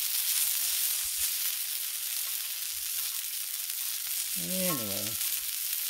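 Meat juices and grease sizzling on a hot Blackstone flat-top griddle, a steady high hiss.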